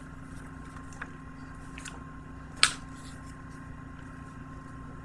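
Quiet handling of Blu-ray packaging and a paper flyer: a few soft clicks, one sharper click about two and a half seconds in, over a steady electrical hum.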